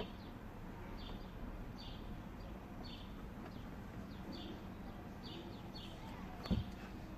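A bird chirping over and over, short high calls about once a second, with one dull knock near the end.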